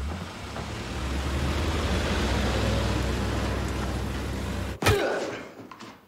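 Old military truck running: a steady low drone with a hiss over it. About five seconds in it breaks off at a single sharp thump that fades quickly.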